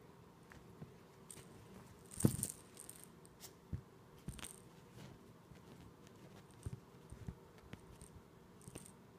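Teacup poodle biting and tugging at a plush toy: scattered soft clicks and scuffles, the loudest about two seconds in.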